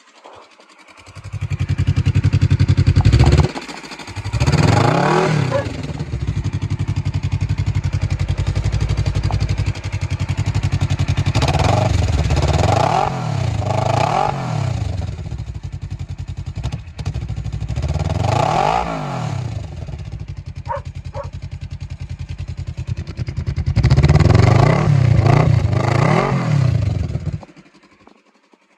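Kawasaki ER-6f's 649 cc parallel-twin engine idling and blipped repeatedly, the revs rising and falling several times, before it cuts off near the end.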